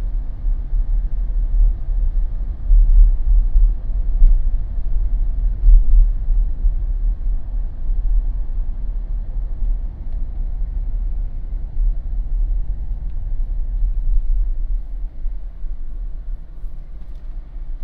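Low, steady road rumble and tyre noise from a Jeep driving slowly on residential streets, easing a little near the end.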